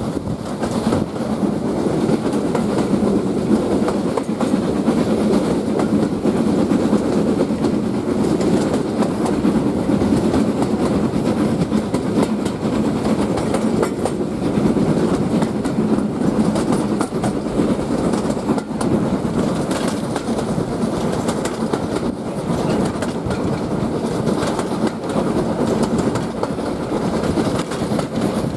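A steam-hauled passenger train running along the line, heard from the carriage window: a steady rumble of the coaches' wheels on the rails, with scattered clicks over the rail joints.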